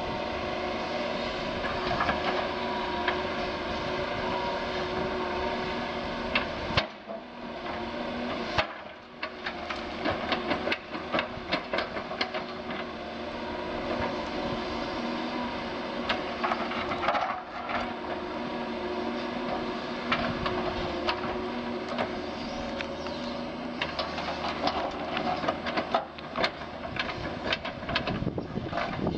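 Doosan DX180 LC excavator working: a steady diesel engine note under hydraulic load, with frequent knocks and clatters from the machine working the ground. The engine sound drops away briefly about seven seconds in and then picks up again.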